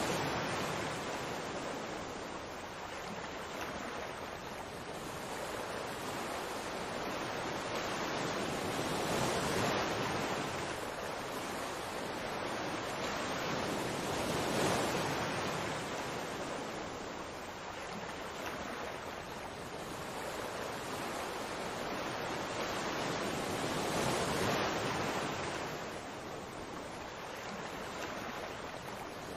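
Steady rushing noise of fast-flowing water, swelling and easing slowly every few seconds.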